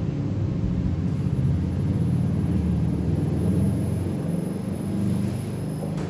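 Steady low machine rumble, a little louder in the middle.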